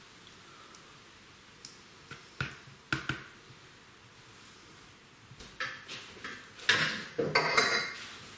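A serving spoon scraping and tapping curry out of a stainless-steel pan into plastic takeaway containers: a few separate knocks, then a louder run of clattering from the pan and spoon over the last three seconds.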